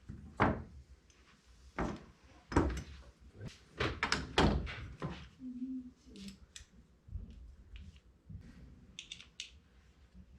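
Motorcycle chain guide parts being handled on a workbench: a string of sharp knocks and thunks in the first five seconds, then a few lighter clicks near the end.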